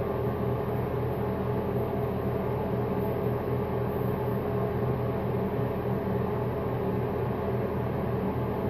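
Steady mechanical hum with a low droning tone and a hiss over it, unchanging throughout.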